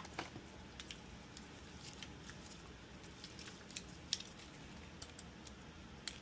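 Faint, scattered light clicks and taps from multimeter probes being touched to components on a circuit board, the loudest about four seconds in.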